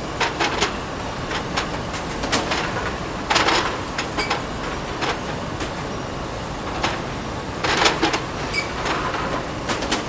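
Plate-making machinery at work: irregular sharp clacks and a few short clattering bursts over a steady mechanical rumble.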